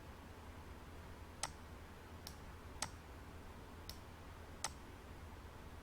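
Five sharp, faint single clicks of a computer mouse, spaced irregularly, over a faint steady low hum.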